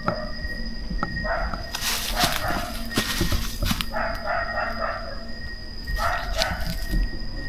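Animal calls in several short stretches, about a second and a half, four and six seconds in, over a steady high-pitched tone.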